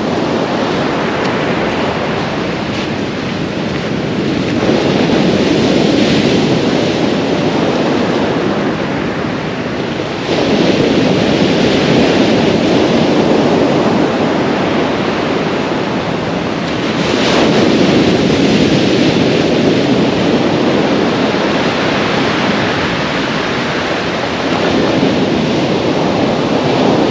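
North Sea surf breaking on a beach: a continuous rush of waves that swells louder roughly every six or seven seconds as each wave comes in.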